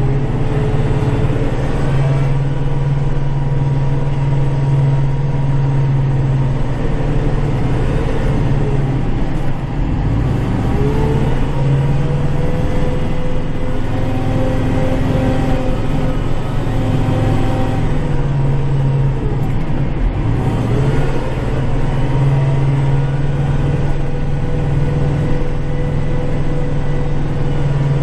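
Kubota tractor's diesel engine running steadily under load while snow plowing, heard from inside the cab, its pitch dipping and climbing back twice, about ten and twenty seconds in.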